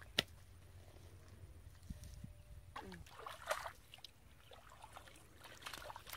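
Hands sloshing and splashing in shallow muddy water, with a few splashes about three and a half seconds in and again near the end; a single sharp click just after the start.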